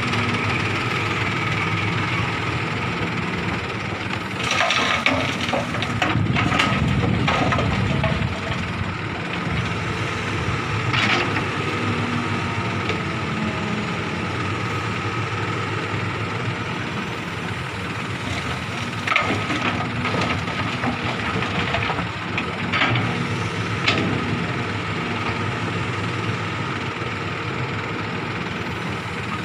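Hitachi hydraulic excavator's diesel engine running steadily while it loads a dump truck, with loud clattering crashes as bucketloads of rock and soil drop into the steel dump bed, about five seconds in, around eleven seconds, and several more between about nineteen and twenty-four seconds.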